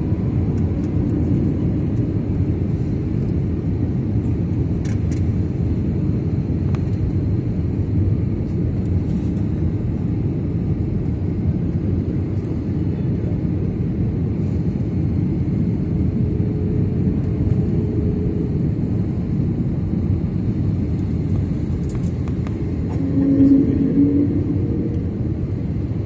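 Steady low rumble of jet engines and airflow heard inside the cabin of an Airbus A320-family airliner descending on approach. A short, louder humming tone comes in near the end.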